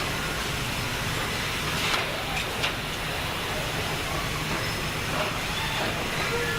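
Car assembly plant floor noise: a steady hum and hiss of machinery, with a couple of short clanks about two seconds in.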